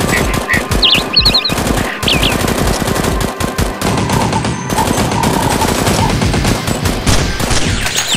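Rapid automatic gunfire, as added sound effects for a staged Nerf shootout: dense, continuous bursts of shots with a few brief metallic ringing tones about a second in.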